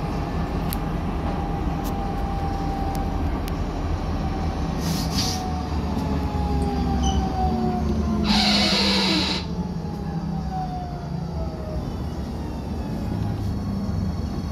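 Cologne Stadtbahn tram running on its track, heard from the driver's cab: rumble of wheels on rails with the whine of the electric traction motors, which falls in pitch over the second half as the tram slows. A loud hiss lasting about a second comes about two-thirds of the way in, with a shorter, fainter one a few seconds before it.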